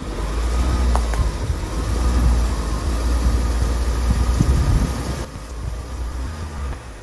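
2011 BMW X5 35i xDrive's straight-six engine idling, just started after sitting as a salvage wreck, with a few light knocks; the sound drops off about five seconds in.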